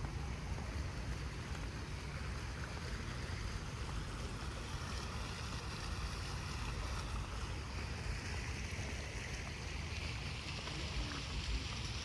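Wind rumbling on the microphone, with the splashing of a low plaza fountain's small water jets growing louder in the middle and fading again.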